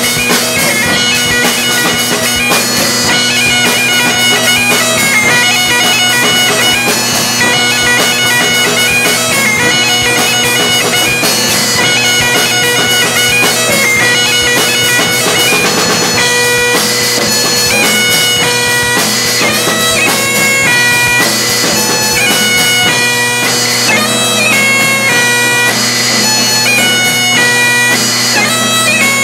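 Great Highland bagpipe playing an up-tempo tune over its steady drones, with drums beating along.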